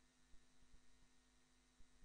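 Near silence: faint background hiss with a low steady hum.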